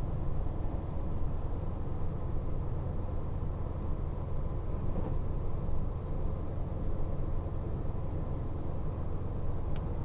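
Steady low rumble inside a KiHa 261 series diesel railcar running at speed, with a faint click near the end.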